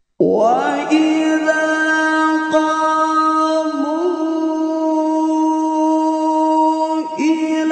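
A male qari chanting Qur'an recitation in the melodic tilawah style, entering suddenly and holding one long sustained note, with a small ornamental turn about four seconds in and a brief break near the end before the voice carries on.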